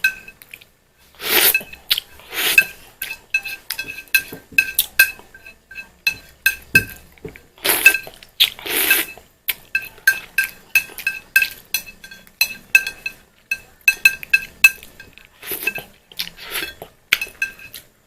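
Metal cutlery clinking against a plate or bowl over and over, about two strikes a second, each strike ringing briefly at the same pitch, as noodles are picked up and eaten. A few longer, noisier sounds come in between.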